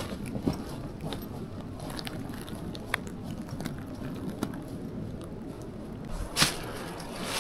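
A hiker's footsteps on a rocky trail: irregular crunches and small clicks, with a louder one about six and a half seconds in.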